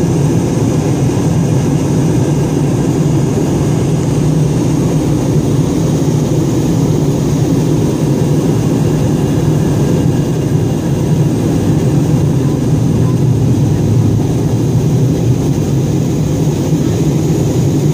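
Steady cabin noise of a passenger airliner in flight, heard from inside the cabin: a constant low rumble of engine and air noise with a faint high whine above it.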